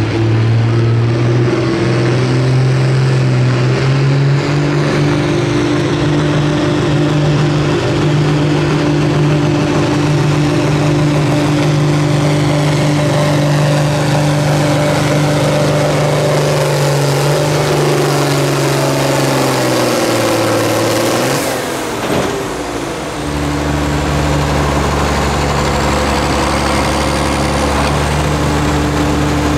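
Pulling tractor's engine running flat out under load at a steady high pitch, sagging gradually lower toward the end of the run until it cuts off abruptly about 22 seconds in. A deeper engine then runs steadily.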